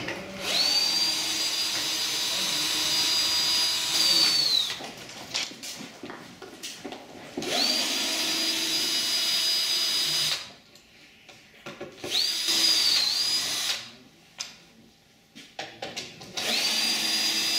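Bosch cordless drill-driver driving screws into a wooden table frame: four runs of a high, steady motor whine, each spinning up and winding down, with clicks and knocks of handling in between. The last run is still going at the end.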